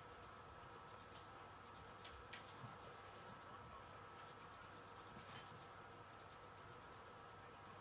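Faint scratching of a pencil drawing on sketchpad paper in short, irregular strokes, with a few light taps.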